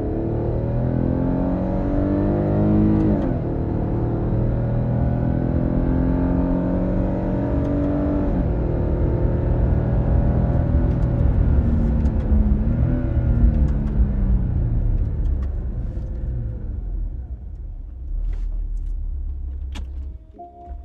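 Car engine heard from inside the cabin, accelerating hard. Its pitch climbs and drops sharply at gear changes about three and eight and a half seconds in, then winds down from about thirteen seconds, leaving a low road rumble near the end.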